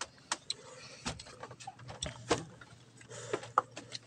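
Close eating sounds as rice and grilled fish are eaten by hand: irregular sharp smacks and clicks of lips, chewing and fingers, the loudest about a second in, a little after two seconds and about three and a half seconds in.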